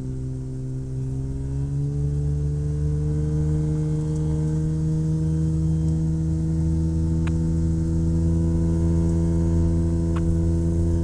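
Rotax 582 two-stroke engine of a Chinook Plus 2 ultralight throttling up, its pitch rising over the first two seconds, then running steadily at full power through the ski takeoff run.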